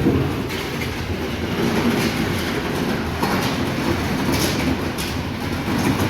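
Heavy farm machinery running: a continuous low diesel rumble with irregular metallic rattling and clatter.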